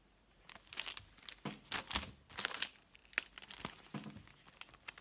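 Clear plastic packets of bead-embroidery kits crinkling and rustling as they are handled and swapped, in short irregular crackles that start about half a second in.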